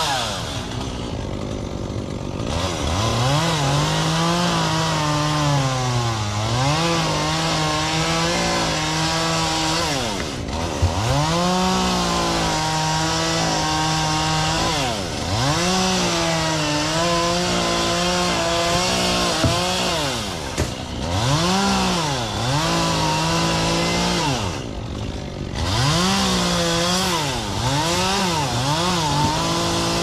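Two-stroke chainsaw cutting Canary Island date palm fronds. The engine is held at high revs for a few seconds at a time, its pitch dropping back briefly between cuts, then rising and falling quickly several times near the end.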